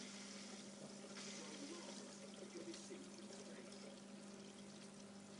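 Faint, steady trickle of aquarium water over a constant hum.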